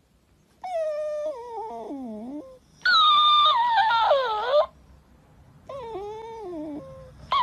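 Dog whining in three long, drawn-out, howl-like cries, each sliding downward in pitch, with short gaps between them. The middle cry is the loudest, and another cry begins right at the end.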